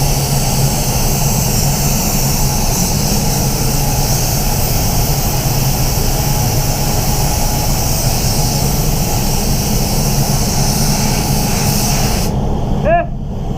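ANI F160 spray gun with a 1.2 tip spraying base-coat blender, a steady air hiss over a continuous low hum, which cuts off abruptly near the end as the trigger is released. The gun seemed to be spraying unevenly, which the painter thinks might mean a dirty air cap or fluid tip.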